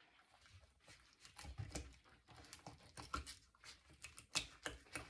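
A dull Rapala fillet knife cutting and scraping through a perch on cardboard: an irregular run of faint crunches, taps and rasps as the blade works along the fish, the sharpest crunch a little past four seconds in.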